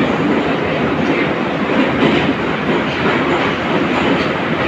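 Metro car type 81-541.2 running between stations, heard from inside the passenger car: a loud, steady rumble of wheels and running gear on the rails.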